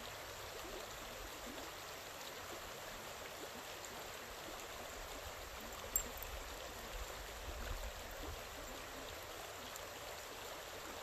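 Creek water running steadily over rocks, an even rushing sound, with one sharp click about six seconds in.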